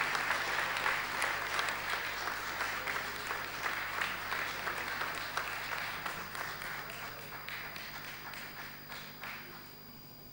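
Audience applauding, the clapping gradually thinning out and dying away near the end.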